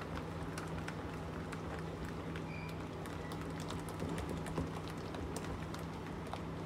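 Thick ground-lentil batter being beaten by hand in a steel bowl to make it fluffy: a run of irregular wet slapping and squelching clicks, over a steady low hum.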